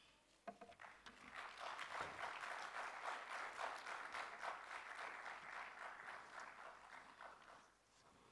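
Audience applauding in an auditorium: many hands clapping, starting about a second in and dying away near the end.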